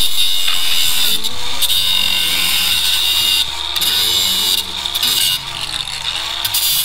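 Cordless DeWalt angle grinder cutting along the edge of a panel: a loud, steady grinding that breaks off briefly about three and a half seconds in, then resumes and drops to a lower level for the last couple of seconds.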